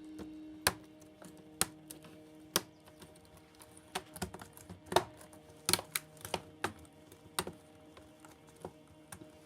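Irregular sharp plastic-and-metal clicks and taps, about fifteen of them, from hands working on the inside of an opened laptop, over faint background music.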